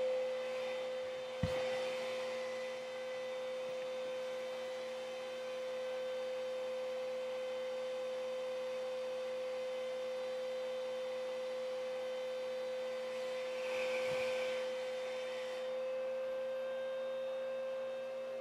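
Bissell CleanView upright vacuum cleaner running steadily with an even, high whine, left switched on without vacuuming. There is a short knock about a second and a half in.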